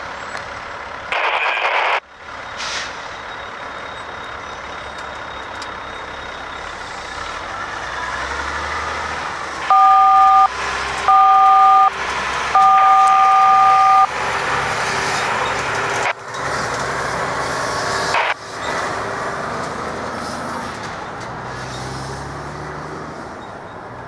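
Freight train rolling past with steady wheel and rail noise. About ten seconds in, a locomotive air horn sounds three blasts on two steady notes: two short blasts, then a longer one.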